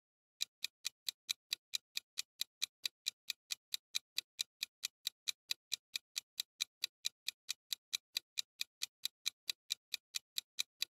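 Ticking sound effect of a 10-second countdown timer: a fast, even run of clock-like ticks, between four and five a second, starting about half a second in.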